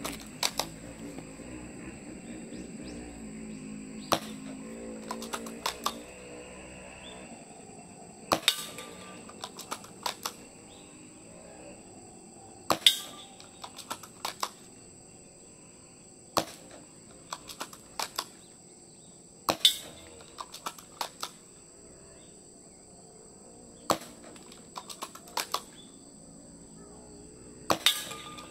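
Tokyo Marui VSR-ONE spring-powered bolt-action airsoft rifle firing, about eight sharp shots roughly four seconds apart. Each shot is followed by a few smaller clicks.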